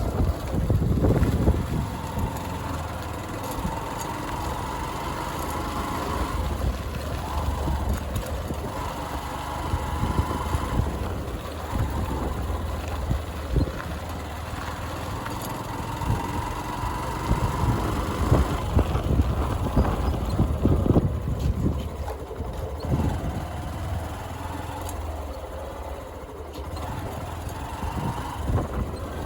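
Motorcycle engine running while riding a rough road, its pitch slowly rising and falling with the throttle, over a heavy low rumble and occasional knocks from the bumps.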